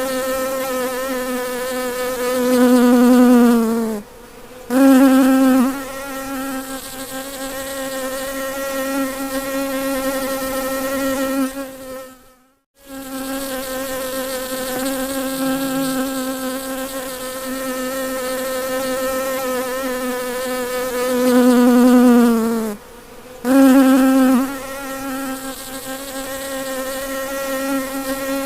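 Bumblebee buzzing with a steady, low-pitched hum. Twice it swells louder and then drops off for a split second, and near the middle it cuts out briefly.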